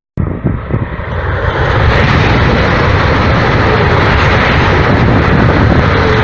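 High-speed train passing at speed: a loud rushing roar of wind and running gear that builds over about two seconds, holds steady, and begins to ease off near the end.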